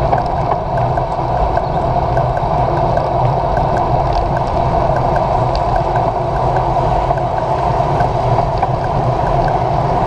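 Steady rushing of wind over a handlebar-mounted camera and road-bike tyres on wet asphalt, with a faint regular ticking.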